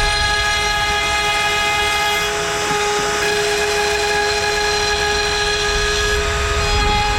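CNC router spindle running at 24,000 rpm with an 8 mm cutter milling wood: a steady high whine over rough cutting noise, which eases briefly about two and a half seconds in.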